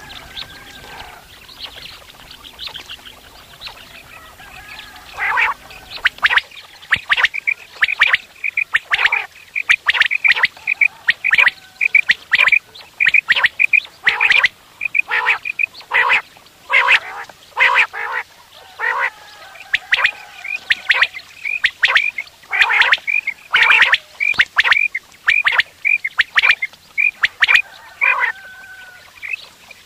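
Common quail calling: faint at first, then from about five seconds in a dense, loud run of short, sharp repeated notes, several calls overlapping.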